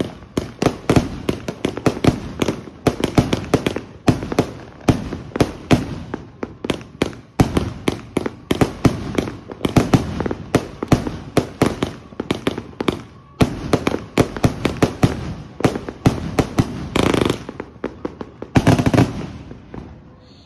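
A 500-gram 200-shot firework cake, Samurai Shodown, firing shot after shot. Salute shells bang overhead several times a second, with two longer, fuller bursts near the end.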